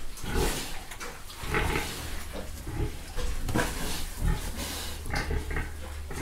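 A sow and her piglets grunting and squealing in a string of short calls, several to the second at times, as the sow lies down among her piglets.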